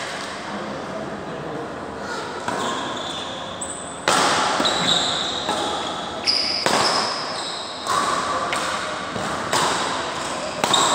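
Badminton rally: rackets striking a shuttlecock about once every second or so from about four seconds in, with short high squeaks of court shoes on the floor and the hits echoing in the hall.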